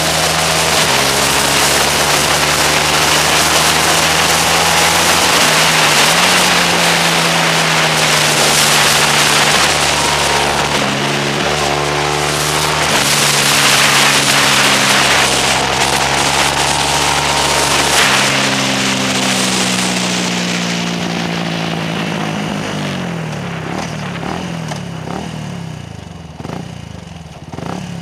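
Motorcycle engine recorded on board while riding a race circuit, its revs rising and falling through the corners under loud wind rush. Over the last several seconds the wind dies away and the engine drops to low, uneven revs as the bike slows.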